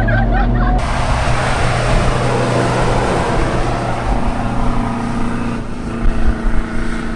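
The engine of an Avtoros Shaman 8x8 all-terrain truck running as it drives across beach sand, over a steady rushing noise. A brief burst of laughter in the cabin is heard just as it begins.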